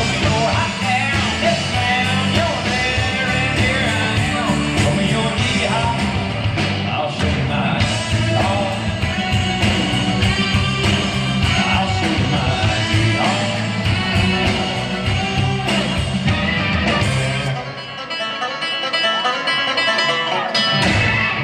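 Live amplified country band playing with a singer and electric guitar over bass and drums. About three-quarters of the way through, the bass and drums drop out, leaving only higher held notes.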